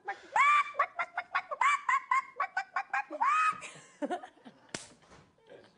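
A person imitating a frantic chicken: three high squawks about a second and a half apart, with rapid clucking clicks between them, dying away after about four seconds.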